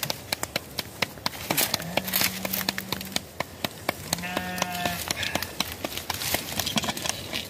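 Quick, irregular slaps of roti dough being patted flat between the palms, about four or five a second. Two drawn-out bleats from livestock come in, one about two seconds in and one about four seconds in.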